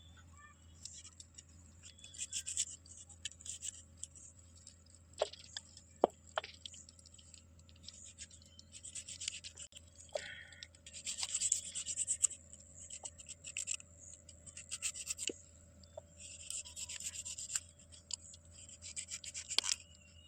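Chicken feet being scraped clean: repeated clusters of scraping, each lasting about a second, with a few sharp clicks between them.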